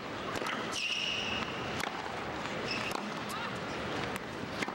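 Tennis ball struck by rackets and bouncing on a hard court during a rally: a string of sharp pops over the low murmur of a stadium crowd, the last near the end the loudest. A high steady tone sounds for about a second near the start.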